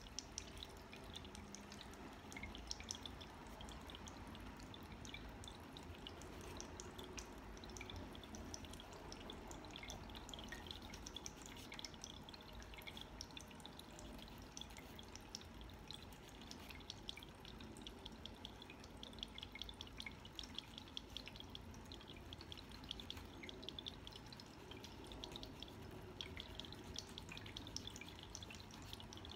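Tabletop water fountain trickling, a steady patter of small drips and splashes.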